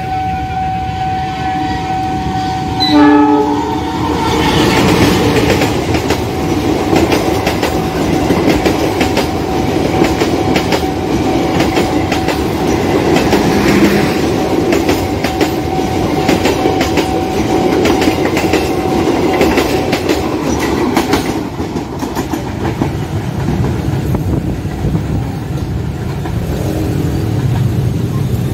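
A CC206 diesel-electric locomotive gives a short, loud horn blast about three seconds in, then passes hauling passenger coaches, wheels knocking over the rail joints for about fifteen seconds, over a steady level-crossing warning tone. The train noise and the tone die away after about twenty seconds, leaving a low rumble.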